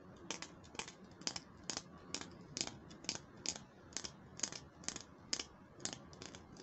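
Sharp plastic clicks in a steady run, about two to three a second, as a finger taps and presses the purple butterfly latch of a pink plastic toy compact mirror.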